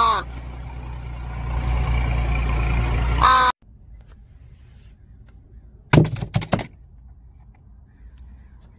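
A crow cawing, one harsh call at the start and another about three seconds in, over a steady low rumble. After a cut, a quiet stretch broken by a short burst of thumps about six seconds in.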